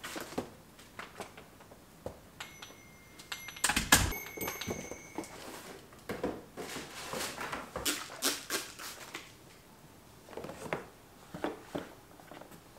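A cardboard box being carried and handled, with scattered knocks, taps and rustling of the cardboard. About four seconds in there is one loud low thud, around which a couple of short electronic beeps sound.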